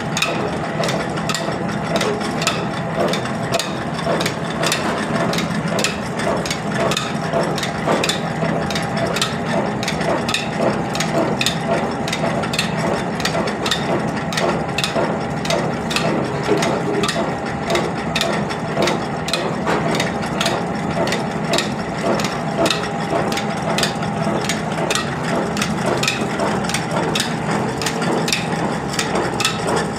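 Belt-driven oil expeller and mill machinery running steadily while pressing oilseed into cake: a constant low hum under rapid, irregular mechanical clattering and knocking.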